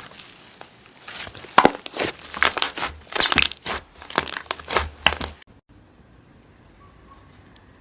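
Slime being pressed and stretched by hand, giving a dense run of crackling, popping clicks that cuts off abruptly about two-thirds of the way through.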